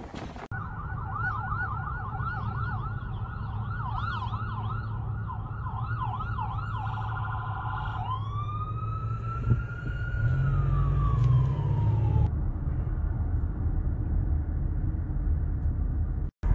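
Electronic emergency-vehicle siren sounding a fast yelp, then switching about eight seconds in to a slow wail that rises and falls away and stops about four seconds later. Under it is the low steady rumble of a car driving.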